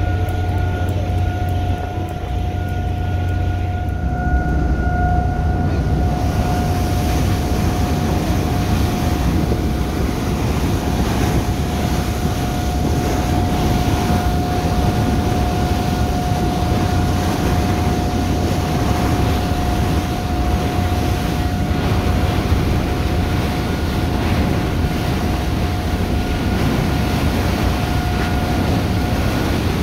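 Car ferry Sound of Seil under way, its machinery giving a steady low hum and a constant high whine. From about five seconds in, a broad rush of wind on the microphone and water spraying off the hull swells up over it.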